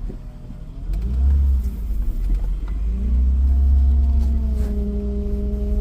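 Acura TL Type S 3.2 L V6 pulling the car away in first gear, getting louder about a second in. The transmission is not upshifting. From about three seconds in a steady whine runs over the engine, which the owner takes for a failing power steering pump.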